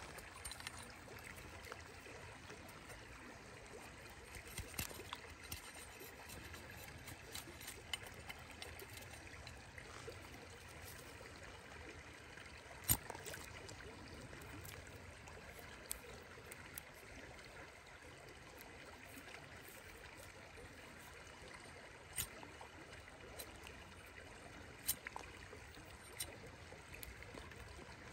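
Shallow river flowing steadily, with scattered sharp clicks and scrapes from a large knife whittling a thin twig into a point; the loudest click comes about halfway through.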